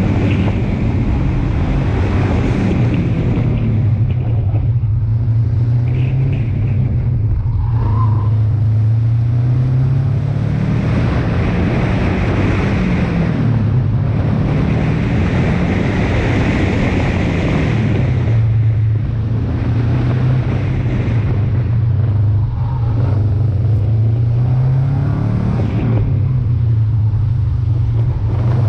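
Subaru Impreza 2.5 RS coupe's 2.5-litre flat-four engine running hard through an autocross course, its note rising under acceleration and dropping off several times as the driver lifts and gets back on the throttle.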